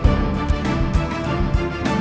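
Background music with a steady drum beat over sustained instrument tones.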